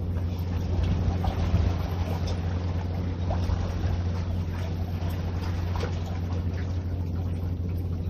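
A steady low motor drone with a constant hum, under a wash of noise and a few faint ticks.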